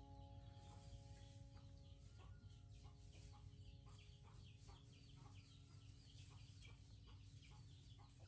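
Faint clucking of chickens: a quick, steady run of short calls.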